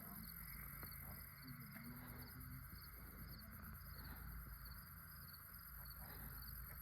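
Faint crickets chirping in an even rhythm, about three chirps a second, over a steady high insect trill.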